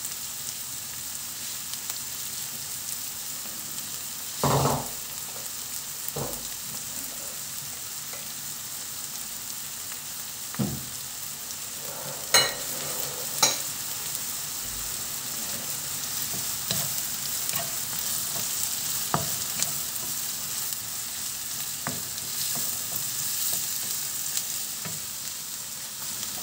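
Chopped onion sizzling gently in oil in a nonstick frying pan, being softened until translucent. A few short knocks and scrapes of a wooden spatula against the pan, the loudest about four and twelve seconds in.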